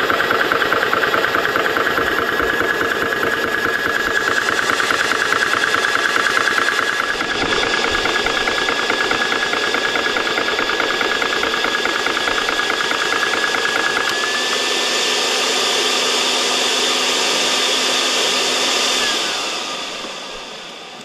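Vevor portable 12-volt PCP air compressor running with a fast steady rhythm, pumping a PCP air rifle's air cylinder up to pressure. Near the end it slows and fades as it is shut off.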